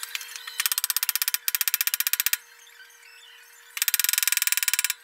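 Fast, even metallic clicking in three runs of about a second each, from a hand tool worked on the shaft end of the milling machine's knee.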